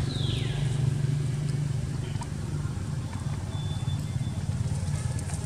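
An engine running steadily with a low, even hum. Right at the start a short high call falls sharply in pitch.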